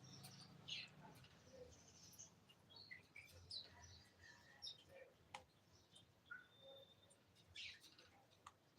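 Faint, scattered short chirps and squeaks from a pet parrot, with a few soft clicks between them.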